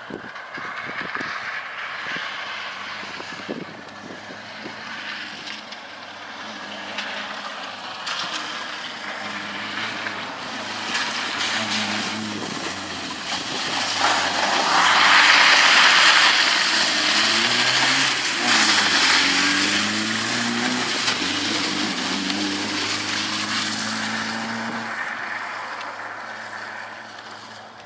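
Peugeot 205 rally car driven hard on a wet loose-surface track, approaching, passing and driving away. Its engine pitch climbs and drops repeatedly through gear changes and lifts, with a loud rush of tyre and spray noise as it goes by about 15 seconds in, then fades.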